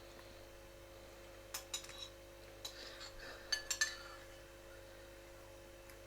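Water dripping from a tap, a few sharp, lightly ringing plinks in two small clusters over a faint steady hum.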